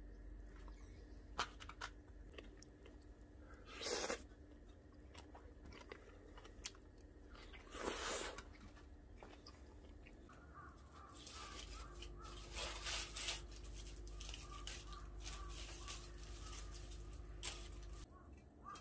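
Light handling sounds of food and utensils being moved on a wooden cutting board and into a metal mess tin: scattered soft clicks and taps, with short scraping rustles about four and eight seconds in and a cluster of small knocks later on.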